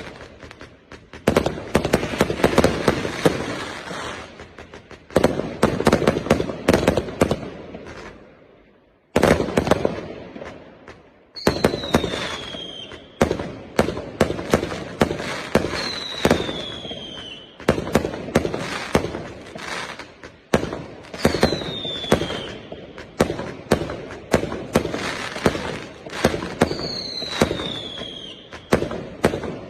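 A 399-shot, 0.8-inch fireworks cake firing: rapid volleys of shots and bangs, with a short lull about eight seconds in. From about eleven seconds on, a falling whistle comes every four to five seconds.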